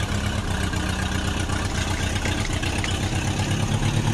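Tractor engine idling with a steady, rapid low chugging. It is an engine sound laid over the footage, since the toy tractor on screen has no engine.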